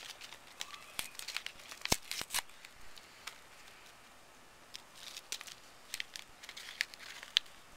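A Pop Rocks candy packet being torn open and handled, its wrapper crinkling in short sharp crackles: a cluster at the start, a quieter stretch, then another from about five seconds in.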